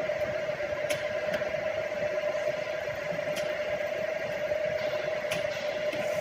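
Tool-room milling machine running with a steady whine, with a few sharp clicks, about one to two seconds apart.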